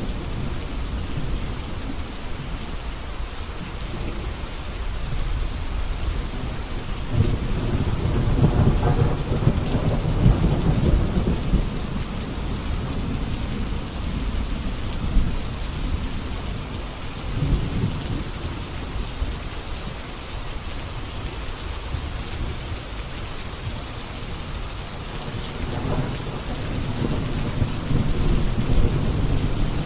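Steady rain falling, with rolling thunder rumbling low underneath; the thunder swells from about a quarter of the way in, rumbles again near the middle, and builds once more near the end.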